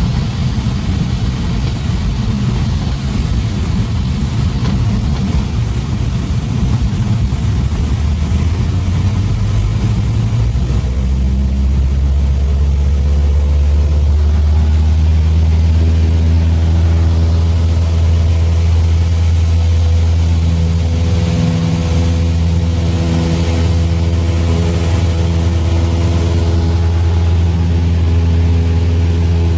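Cessna 172's piston engine and propeller running steadily. A noisy, uneven drone settles about ten seconds in into an even, sustained hum with a clear pitch.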